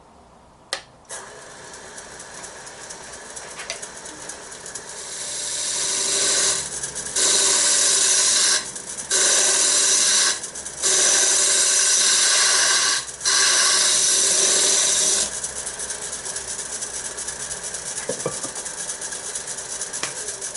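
Wood lathe running while a turning tool cuts into the spinning wooden box wall to give it a curve. The cutting hiss is loud in four stretches from about 6 to 15 seconds, each broken off briefly as the tool comes off the wood, with lighter cutting before and after.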